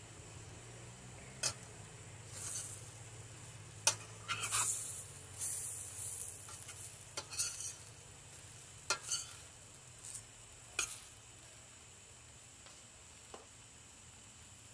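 Metal spoon stirring chicken and vegetables in a stainless steel skillet: scraping strokes and sharp clinks against the pan, with food sizzling over the burner. The stirring stops about three quarters of the way through, leaving the low steady hum and sizzle.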